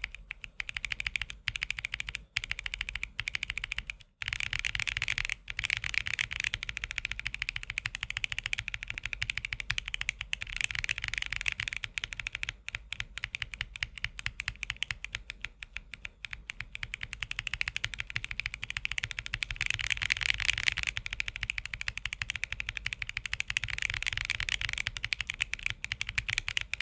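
Rapid, continuous typing on a mechanical keyboard fitted with Akko Creamy Purple Pro tactile switches: a crisp, not too loud clacking of keystrokes, with a few short pauses in the first several seconds.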